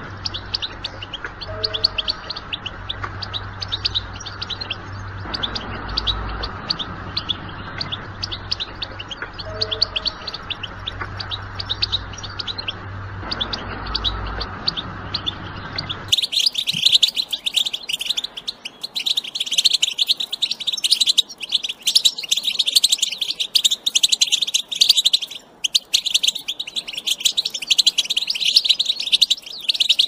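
European goldfinch song: fast twittering chirps and trills. About sixteen seconds in, the recording changes abruptly to a louder, denser twitter, and the low background hum heard under the first part is gone.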